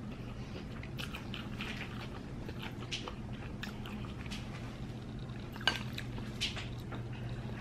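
Close-up eating sounds: chewing and sipping of noodles and soup from a ceramic bowl, with small clicks of chopsticks against the bowl and one sharper click about two-thirds of the way through, over a faint steady low hum.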